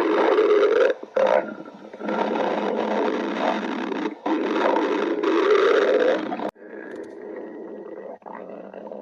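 Stomach growling: long, loud gurgling rumbles with a wavering pitch. They break off briefly about a second in and again around four seconds, then drop to quieter gurgles after about six and a half seconds.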